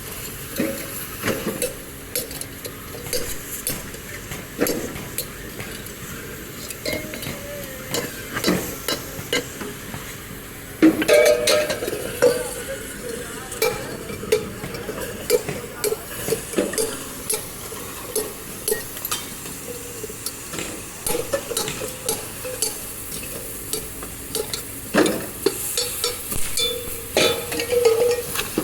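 Irregular metallic clinks, knocks and scraping of metal parts being handled and worked, with a louder burst of clatter about eleven seconds in.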